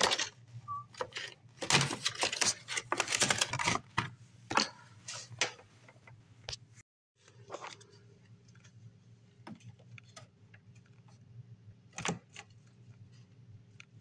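Clicks and rattles of plastic and sheet-metal dishwasher parts being handled and fitted back on. They are busy and dense for the first few seconds and sparse after a short break. One sharp snap comes near the end as the plastic hinge cover is fitted.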